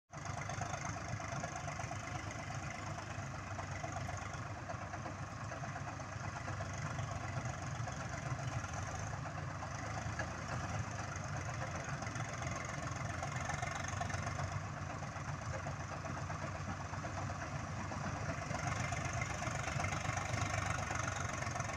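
Swaraj farm tractors' diesel engines running steadily under load while working a tilled field.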